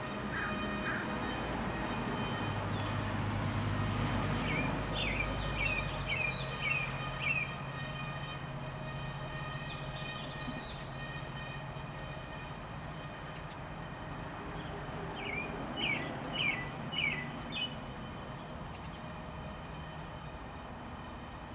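American robin singing two phrases of short whistled notes, one about five seconds in and another about fifteen seconds in, over a steady low rumble that is strongest in the first half.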